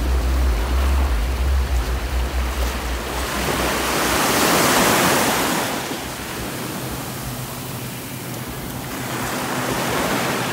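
Small waves breaking and washing up onto a sandy beach, the wash swelling loudest about four to six seconds in and again near the end. Wind rumbles on the microphone during the first few seconds.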